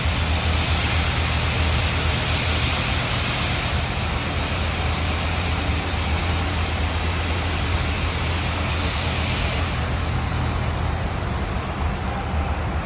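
A steady low mechanical hum under an even hiss, like a motor or engine running without change.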